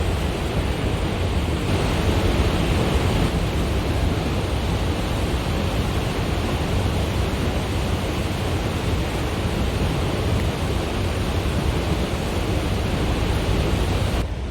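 Snoqualmie Falls' 268-foot waterfall: a steady, loud rush of falling water. The sound changes abruptly just before the end.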